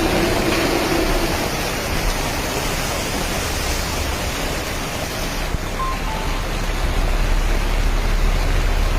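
Summer rain falling steadily, a loud even hiss; the higher part of the hiss drops away about five and a half seconds in. Two brief high tones sound about six seconds in.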